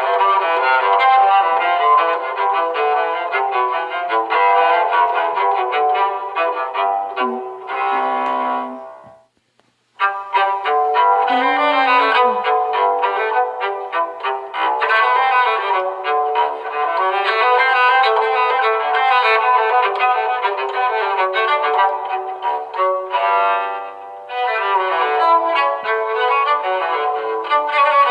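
A phone alarm tone playing a busy melody of many quick notes. It cuts off about nine seconds in, and music starts again about a second later.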